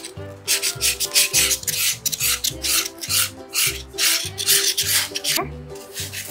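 Felt-tip markers scribbling back and forth on foam shapes, a run of quick scratchy strokes. Under them, background music with a steady beat.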